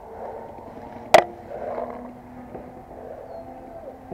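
A single loud, sharp paintball pop about a second in, over a low steady background.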